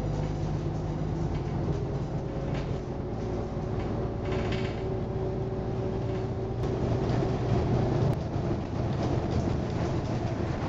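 Metro-Scania single-decker bus under way, heard from inside the saloon: the Scania diesel engine's steady drone with road noise, a little louder about two-thirds of the way through.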